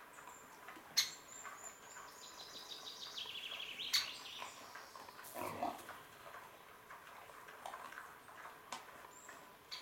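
Wild boar foraging, with a short call from one of the pigs about five and a half seconds in. A trilling songbird sings during the first few seconds.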